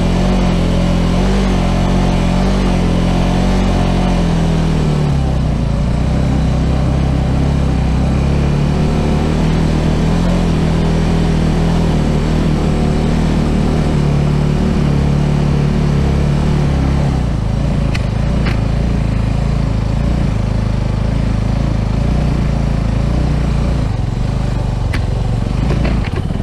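Suzuki Gixxer motorcycle's single-cylinder engine running steadily as it is ridden. Its pitch steps down about five seconds in and shifts again near seventeen seconds.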